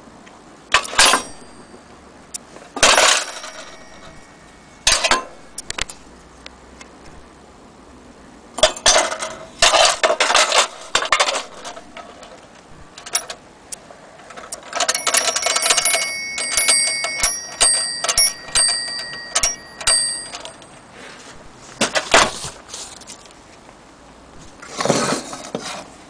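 Linemar toy pay telephone being handled: clattering metal knocks and clicks from its parts, and around the middle a small bell ringing in quick repeated strikes for several seconds.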